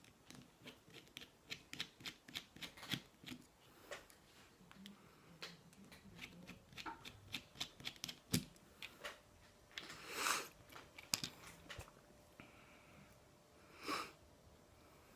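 Faint clicks and light rattles of small metal lock parts being handled as a Lockwood oval lock cylinder is taken apart (gutted). The clicks come quickly at first and then more sparsely, with two short swishes, one about ten seconds in and one near the end.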